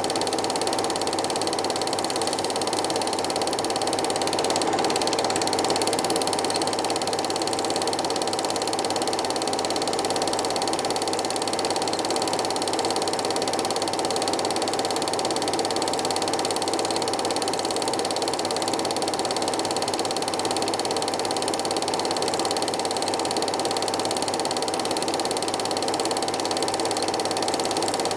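Film projector running: a steady mechanical whirr and clatter that does not change.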